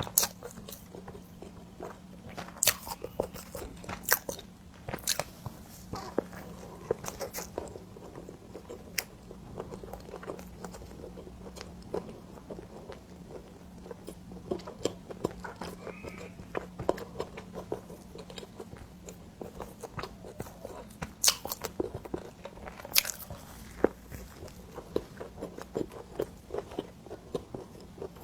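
Close-miked chewing and biting of cream bread, with many short, sharp wet mouth clicks at an irregular pace. A faint steady low hum lies underneath and fades near the end.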